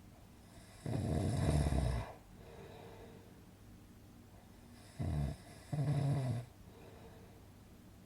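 Snoring in its even sleeping rhythm: one long snore about a second in, then two shorter snores, one just after five seconds and one around six seconds.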